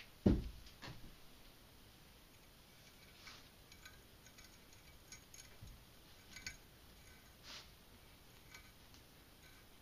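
A dull low thump about a third of a second in, then faint, scattered small metallic clicks and ticks as a small set screw and a hex key are handled and fitted into an AR-15 rifle's gas block on its barrel.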